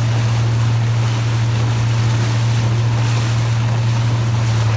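Boat engine running with a steady low drone, under a constant rush of wind and water.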